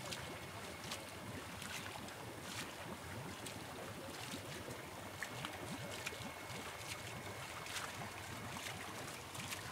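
Water splashing and sloshing, with many small sharp splashes and drips over a steady wash of noise. Wind buffets the microphone.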